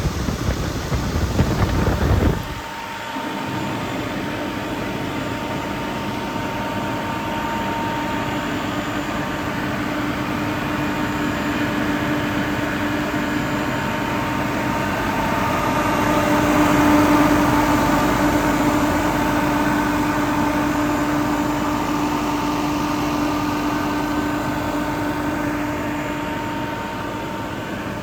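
A Kaeser ASK 35 T 22 kW rotary screw air compressor runs. About two seconds in the low rumble drops off suddenly, and the machine carries on with a steady hum that swells a little in the middle.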